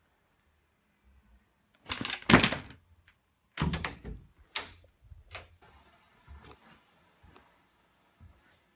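Door being opened by hand, with clunks and knocks of handling: a loud double thump about two seconds in, the door knob and latch clunking around four seconds in, then a few fainter taps.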